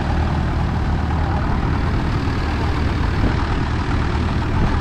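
Farm tractor engine idling steadily, with a continuous hiss of breaking surf underneath.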